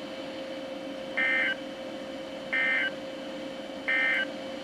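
Emergency Alert System end-of-message code from a Midland WR120B weather radio: three short bursts of warbling data tones, each about a third of a second long and about a second and a half apart, over a steady hum. The bursts mark the end of the severe thunderstorm warning broadcast.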